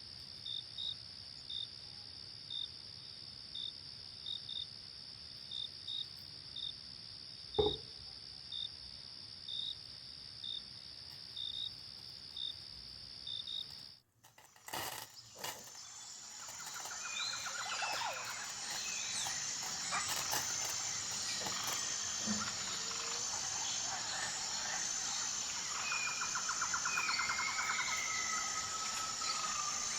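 Crickets and other insects: a steady high buzz with short chirps about twice a second, and one sharp knock about a quarter of the way in. After a sudden break halfway, a busier and louder insect chorus with a repeating high pulse, and birds calling with gliding notes.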